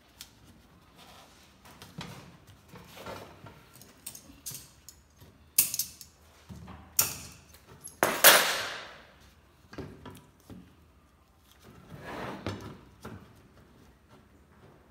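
Handling noise as a corrugated-cardboard lid is shifted and pinned with wire onto a clear plastic cylinder: scrapes and rustles with a few sharp clicks and taps. The loudest, a longer scrape, comes about eight seconds in.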